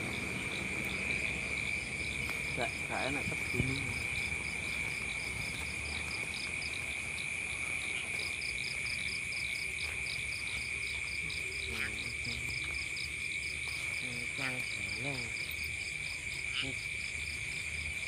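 Night insects, crickets, calling steadily: a continuous high trill with a fast, even pulsed chirping above it, about five pulses a second.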